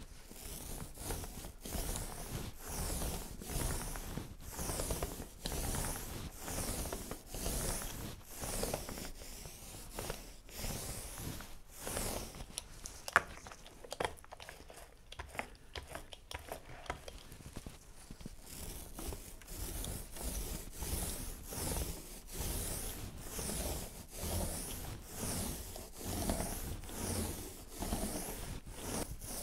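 Small foam roller being worked up and down over a wooden board, spreading a thin coat of epoxy in a steady run of rubbing strokes. Partway through, the strokes pause for quieter handling with a few clicks as the roller is reloaded in the tray, then the rolling resumes.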